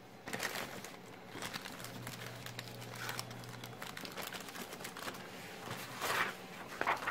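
Thin plastic parts bags crinkling and rustling as hands handle and open them, in irregular bursts, a little louder about six and seven seconds in.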